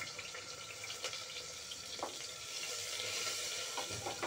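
Chopped onion sizzling in hot oil with cumin in an open pressure cooker: a steady frying hiss with a few faint clicks.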